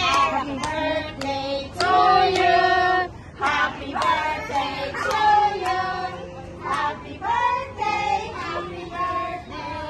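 A group of young children singing a song together with adults, with scattered hand claps.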